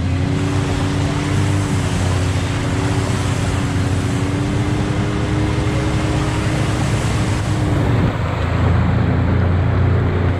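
Can-Am Maverick X3 X MR Turbo RR's turbocharged three-cylinder engine running under way, heard from on board, its note climbing slowly and then dropping about eight seconds in.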